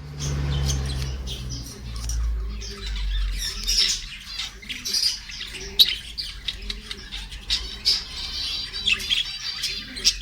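Parrots chirping and squawking in a busy, continuous chatter of short high calls. A low rumble runs under the first few seconds.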